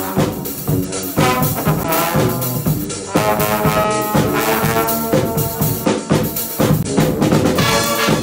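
Live brass band music: trumpets and trombone playing held, stacked notes over a sousaphone bass line, with bass drum, snare and cymbal keeping the beat.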